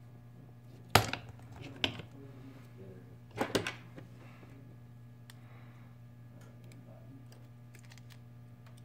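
A few sharp knocks and clicks of small tools and phone parts being handled on a repair bench: a loud knock about a second in, another a second later, and a short cluster about three and a half seconds in, followed by faint ticks, over a steady low hum.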